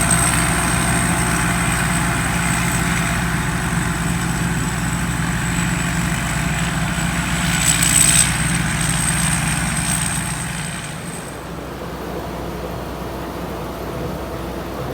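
Combine harvester running steadily with a thin high whine over the engine. About eleven seconds in, the sound drops and turns quieter and duller.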